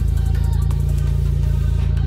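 Background music with a steady, loud bass line.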